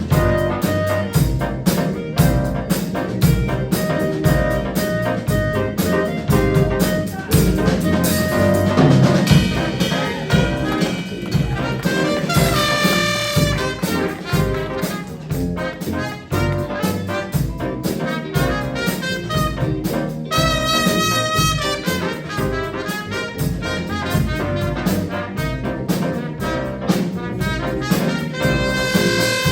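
School jazz band playing a swing-style chart: trumpets, trombones and saxophones over a drum kit keeping a steady beat. Loud held horn notes stand out about 12 and 20 seconds in.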